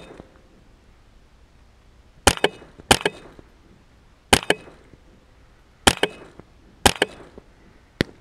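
Rifle shots: six sharp cracks fired in quick, uneven succession, between about half a second and a second and a half apart, each followed by a brief echo.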